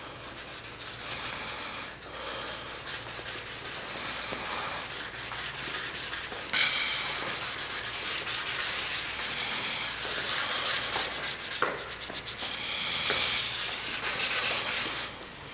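Abrasive pad rubbed by hand, back and forth, along the edge of a metal chamber door cover plate. It makes a fast, scratchy scrubbing that swells louder in several spells.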